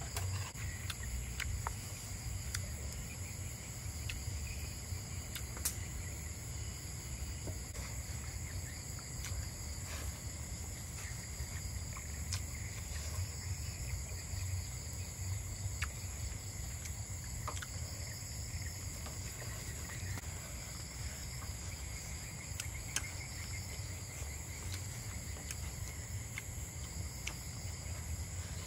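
Night-time chorus of crickets and other insects: a steady, high-pitched trilling that does not let up, over a low steady rumble, with a few faint, scattered clicks.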